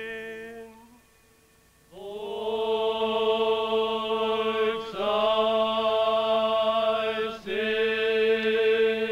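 A man chanting an Orthodox liturgical text in Byzantine style into a microphone, on long held notes that barely move in pitch. A held note dies away about a second in, and after a short gap the chant starts again and runs on with brief breaks.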